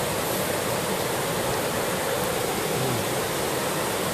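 Steady rushing of a river waterfall, an even roar of falling water.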